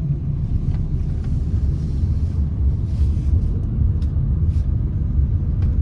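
Steady low rumble of a vehicle driving slowly, with a few faint clicks.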